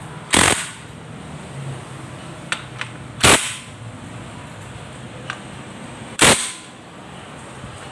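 Cordless DeWalt impact wrench hammering bolts tight in three short bursts, about three seconds apart, with a few light clicks of the socket and tool in between.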